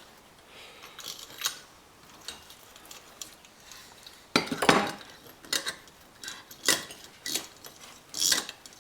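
Faucet parts clinking and knocking against each other and the work surface as the line is fed back through the faucet body: a series of short sharp clicks, loudest in a clatter about halfway through, with a few more near the end.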